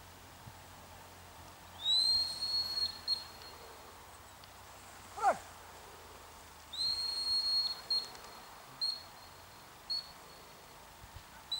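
Gundog handler's whistle signalling a working retriever: a long blast about two seconds in with a couple of short toots after it, then another long blast and single short toots spaced about a second apart. A brief, steeply falling swoop sounds between the two long blasts.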